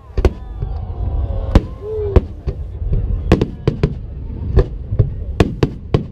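Aerial fireworks bursting: a dozen or so sharp bangs, some coming in quick clusters, over a steady low rumble.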